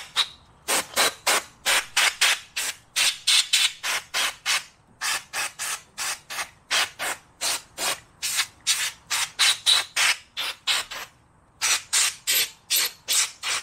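Canned compressed-air duster fired in short hissing blasts, about three a second, blowing water out of the derailleur joints to dry them before lubing, with a brief pause about eleven seconds in.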